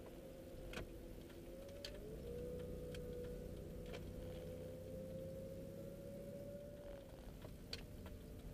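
A car's engine and drivetrain heard from inside the cabin at low speed: a low hum with a thin steady whine that steps up about two seconds in and slowly rises in pitch, and a few scattered light ticks and rattles.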